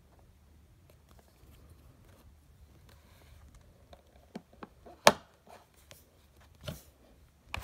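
Handling noise: fingers rubbing and shifting on a smartphone, with a few light taps and knocks in the second half, the sharpest about five seconds in.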